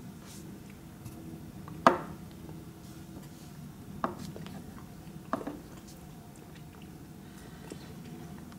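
Mouth and lip smacks from tasting a spoonful of thick manuka honey: a few short wet clicks, the loudest about two seconds in and softer ones near four and five and a half seconds, over a low steady hum.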